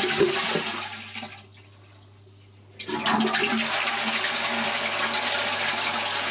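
Toilet cistern flushing through a newly fitted Jollytronic flush valve, lifted by hand for a test flush: water rushes out and dies away about a second and a half in, then a steady rush of water starts again about three seconds in.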